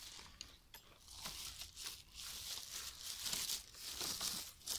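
Footsteps rustling and crunching through dry grass and burnt brush, in irregular swishes.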